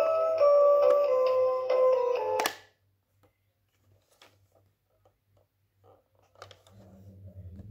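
Pop-up animal toy's built-in electronic tune playing from its speaker as a simple beeping melody, cutting off abruptly with a click about two and a half seconds in. Faint plastic clicks and handling noise follow near the end.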